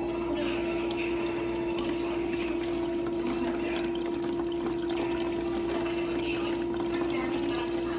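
Tylr TYL-IM2200GS portable ice maker running, its water pump giving a steady hum while water trickles and splashes into the tray, the fill stage of an ice-making cycle.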